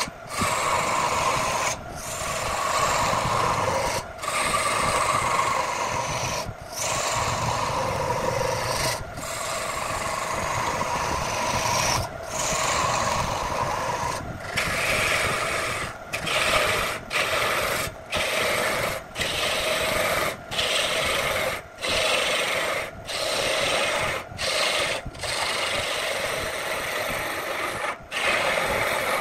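Turning chisel scraping and cutting into a spinning wooden workpiece on a wood lathe, a steady rasping cut broken by short breaks. The breaks come every couple of seconds at first and about once a second in the second half, as a row of grooves is cut.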